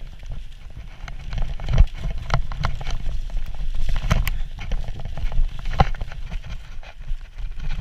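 Orbea Rallon mountain bike ridden fast down a rooty dirt trail: a steady low rumble of tyres and wind on the body-mounted microphone, broken by frequent clattering knocks and rattles as the bike hits bumps. The loudest knocks come about two, four and six seconds in.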